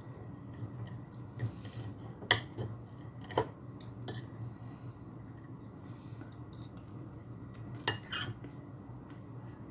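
Metal fork and spoon clinking and scraping against a ceramic plate while scooping rice, a scattered run of sharp clinks, the loudest about two seconds in and another cluster near the end, over a steady low hum.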